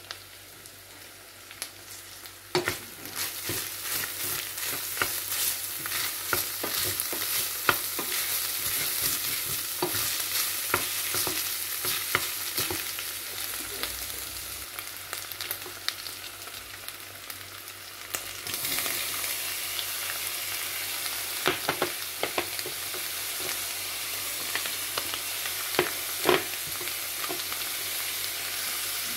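Ground beef and onion frying in a stainless-steel pot, sizzling steadily, with a wooden spoon scraping and knocking against the pot as it is stirred. The sizzle grows louder a couple of seconds in and again about two-thirds of the way through.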